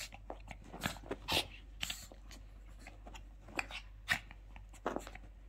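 Small long-haired dog rubbing its face and body into a terry towel on carpet, a run of short, irregular scuffs and rustles: the dog is drying itself after a bath.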